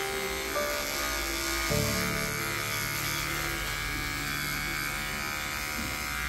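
Wahl electric dog clipper running with a steady buzz while it trims the fur between a dog's paw pads.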